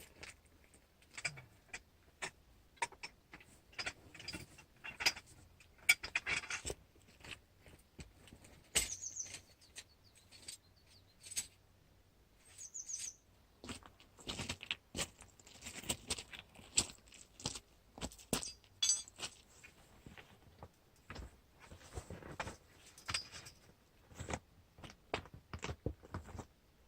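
Wild birds chirping now and then, with two short high calls, among many light clicks and knocks.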